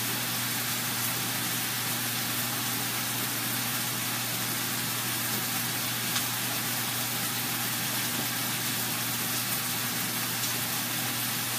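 Steady hiss with a low hum from a stove with lit gas burners and a pan on it, with a faint tick about six seconds in.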